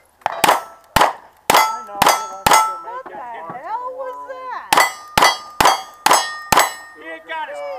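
Revolver fired at steel targets: ten shots in two quick strings of five, about half a second apart, with a pause of about two seconds between the strings. Each shot is followed by the ringing clang of a steel plate being hit.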